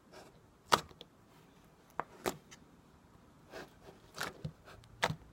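Homemade glitter slime being poked with a finger, giving a string of short, soft clicks and pops at irregular intervals, about seven in all.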